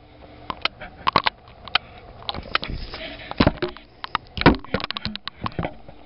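Handling noise from a camera held against an air conditioner's wire fan guard: scattered clicks, knocks and rubbing, with two heavier thumps about three and a half and four and a half seconds in.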